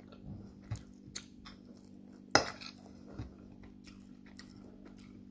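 Metal spoon clinking and scraping against a plate of rice: a few scattered light clicks, with one sharper clink about two and a half seconds in.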